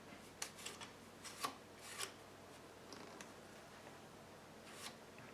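Faint, scattered small clicks and rubbing of hands handling the brush holder and parts at the commutator end of a repulsion-induction electric motor during reassembly.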